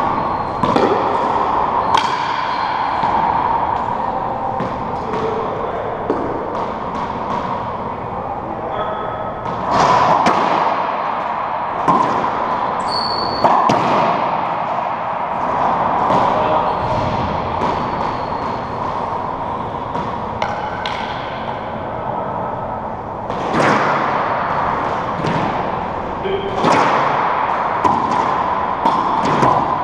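Racquetball rally: the rubber ball cracking off racquets and off the front wall, side walls and floor at irregular intervals, each hit ringing in the enclosed court.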